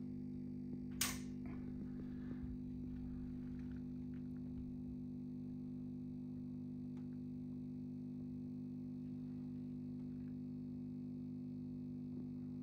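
Steady electrical mains hum, a low buzz made of several steady tones stacked together, with one sharp click about a second in.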